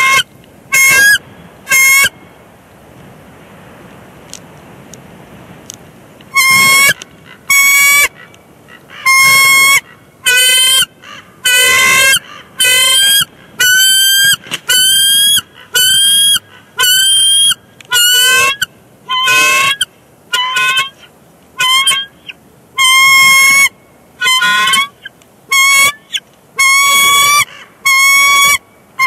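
Bald eagles calling: high, quavering piping calls of about half a second each. Three calls come in the first two seconds, then after a short lull a steady run of about one call a second, the pair calling to each other at a nest changeover.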